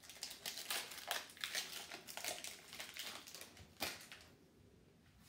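Foil wrapper of a Pokémon booster pack crinkling in the hands as it is worked open: a quick run of crackles, then a single sharp click about four seconds in, after which it goes much quieter.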